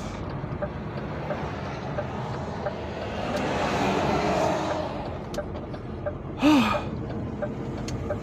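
Lorry's diesel engine running at low speed with road noise heard inside the cab; a wash of noise swells and fades in the middle. A short breathy vocal sound about six and a half seconds in.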